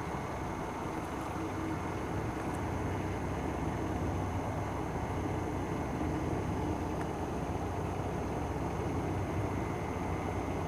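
A truck engine running steadily: an even low rumble with no breaks.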